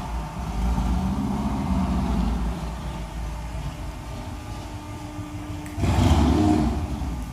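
Mercedes-Benz CL550's V8 engine running steadily, with one brief rev about six seconds in.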